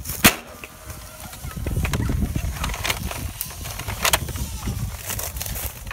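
A sharp snap shortly after the start, then rough rumbling handling and footstep noise on dry leaf litter as the player moves off with the blaster-mounted camera, with a second snap about four seconds in.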